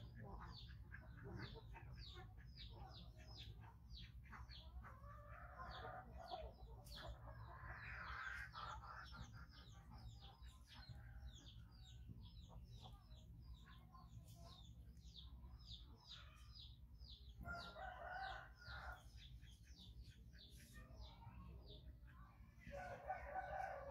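Faint bird calls: a steady run of short, quick falling chirps, with a few longer, lower calls about a quarter of the way in, at about three-quarters, and again near the end.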